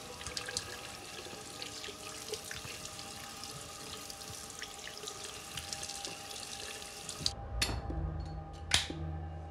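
Water running from a tap and splashing into a sink, with drips and small splashes. It cuts off suddenly about seven seconds in, and low held music notes with a few sharp knocks take over.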